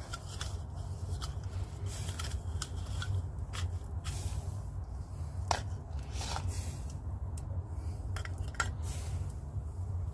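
Light clicks, taps and rustles of things being handled on a bamboo slat mat: a plastic cup and a metal spoon set down and moved about, over a steady low rumble.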